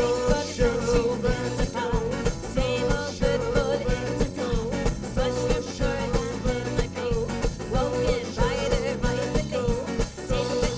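Live folk-rock band playing fiddle, acoustic guitar, bass guitar and drum kit, with a steady beat and a wavering melody line running over it.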